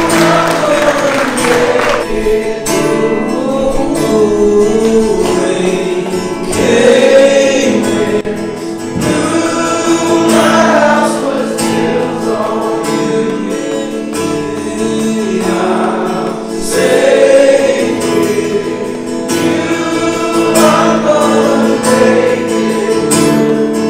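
Christian worship music: a group of voices singing a melody together over steady held chords.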